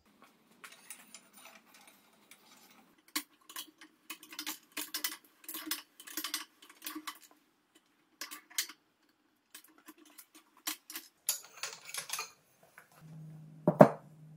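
Metal clicking and clinking from a manual rotary draw tube bender as its lever is worked to bend 1-inch DOM steel tubing, several clicks a second, with one sharp knock near the end.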